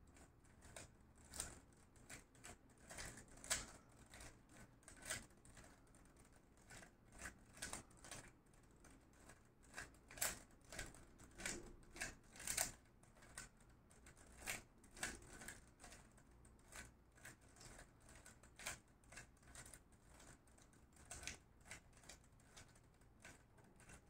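Faint, irregular plastic clicking of a 3x3 Rubik's cube as its layers are turned over and over, repeating the same short move sequence until the cube is solved.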